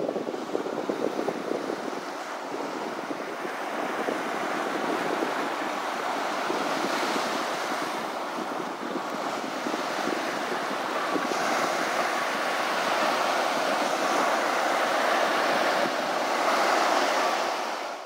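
Ocean surf: a steady rush of waves breaking and washing up the beach, with some wind, swelling a little louder in the second half.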